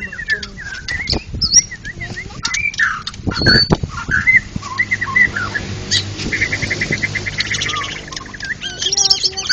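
White-rumped shamas (murai batu) singing: overlapping varied whistles and chirps, with a fast repeated trill a little past the middle. A dull thump cuts in about a third of the way through.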